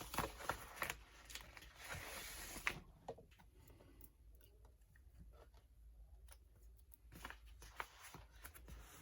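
Faint handling noises as a home button is fitted to an iPad's replacement digitizer screen: a few light clicks and taps, a short rustle about two seconds in, then a nearly quiet stretch before more small ticks.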